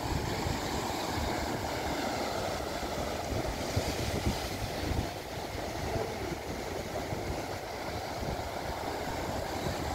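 Sea surf breaking and washing over rocks in a steady rush of noise, with wind buffeting the microphone in irregular low gusts.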